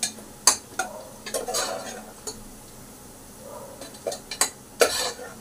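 Metal spoon scraping and clinking against the inside of an aluminium pressure cooker, stirring onions as they fry brown in oil. The spoon knocks against the pot in an uneven string of sharp clicks.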